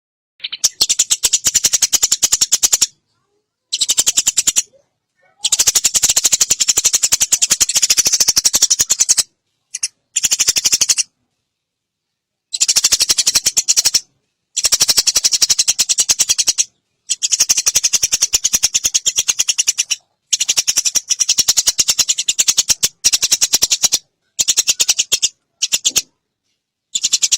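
Eurasian tree sparrow (burung gereja) giving long, rapid, high-pitched chattering calls in bouts of one to four seconds, each broken off abruptly by dead silence.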